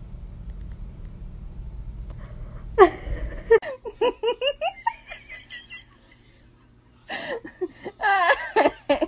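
A person laughing hard in repeated bursts, starting about three seconds in, pausing briefly, then breaking out again near the end. Before the laughter there is a low steady rumble.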